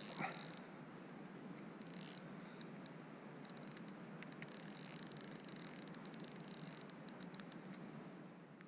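Carp fishing reel clicking in several short runs of rapid ticks while a hooked fish is being played, over faint handling rustle.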